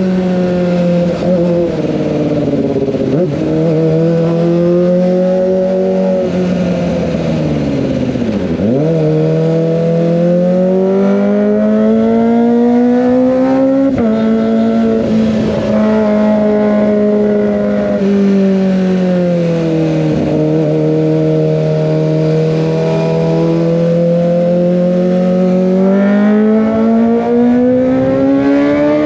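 Kawasaki ZX25R's 250 cc inline-four running through an Over Racing GP-RS full-system exhaust, heard on the move. The engine holds a high, fairly steady note that drifts up and down with the throttle. There are a few gear changes where the pitch steps or dips, the deepest about eight seconds in.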